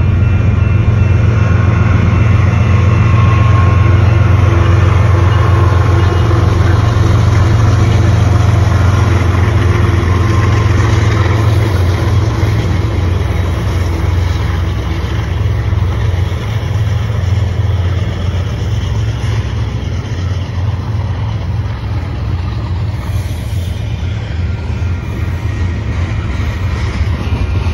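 Two Canadian Pacific GE diesel-electric locomotives, an ES44AC and an AC4400CW, running under power as they pass with a freight train, a heavy low engine drone. About halfway through the engine sound eases and gives way to the steady rolling of covered hopper cars on the rails.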